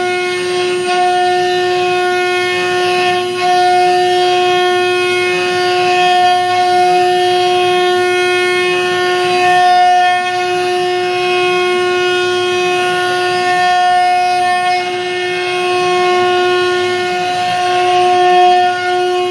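Water-cooled CNC router spindle running at speed with a steady high whine. Beneath it a lower motor whine rises and falls again and again, about once every second and a half, as the axis motors drive the head back and forth.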